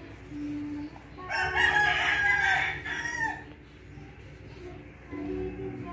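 A rooster crowing once: one loud call of about two seconds, starting a little over a second in.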